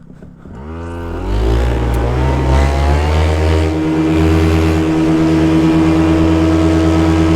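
Paramotor engine and propeller throttling up from idle to full power for takeoff, the pitch rising over the first few seconds and then holding steady and loud.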